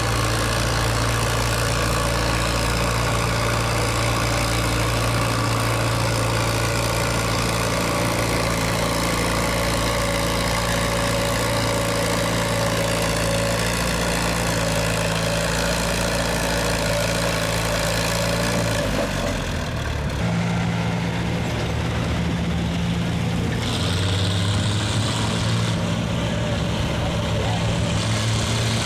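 Farm tractor engine running hard and steady. About two-thirds of the way through, the sound changes abruptly to a different, lower engine note.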